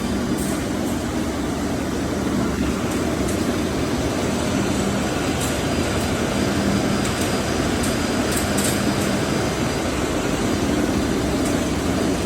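Steady industrial machinery noise of a running mesh belt furnace line for hardening fasteners: a constant hum and rumble, with a few faint ticks.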